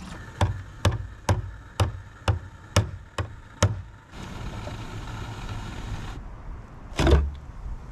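Eight sharp metal-on-metal strikes, about two a second, from a hammer tapping a tool against the steel fuel tank of a 1988 Ford E250 van to free the fuel pump mount, followed near the end by a single louder, heavier clank.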